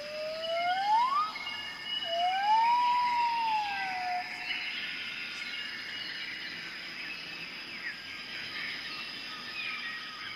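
Tropical forest ambience: a steady high insect drone under many chirping birds. In the first half come two loud sliding whistled calls, the first rising and the second rising then falling.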